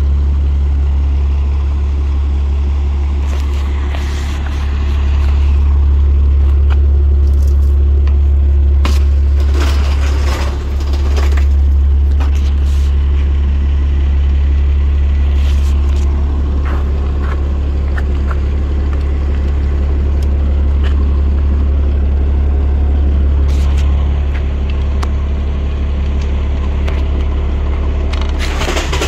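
Fire engine's Cummins diesel idling steadily with a deep hum, and a few short knocks and rattles partway through.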